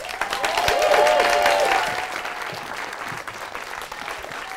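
Studio audience and judges applauding, with a few whoops rising and falling over the clapping in the first two seconds. The applause is loudest at about a second in and then tapers off.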